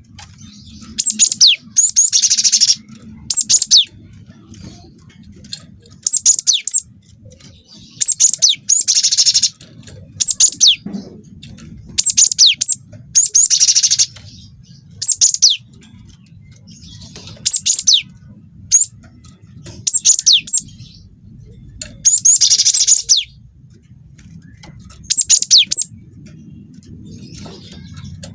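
Cinereous tit (gelatik batu) singing vigorously: short phrases of quick, high, down-slurred notes about every two seconds, several of them with a harsh buzzy chatter. A faint low hum lies underneath.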